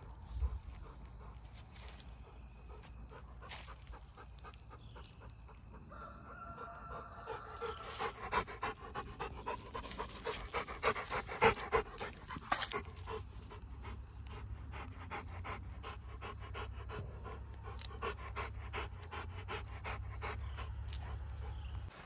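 A French bulldog panting quickly and steadily, stronger from about eight seconds in.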